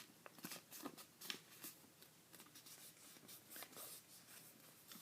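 Faint rustling and crinkling of a square sheet of paper being folded by hand, edges brought in to the center line, with a few soft clicks as creases are pressed.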